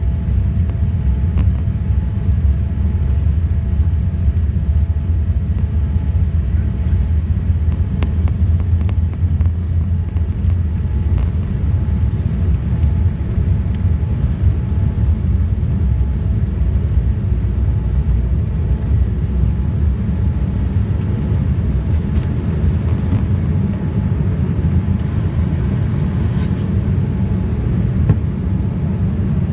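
Boeing 787-9 airliner heard from inside the passenger cabin: a steady, loud low rumble of jet engines and airflow with a faint hum over it.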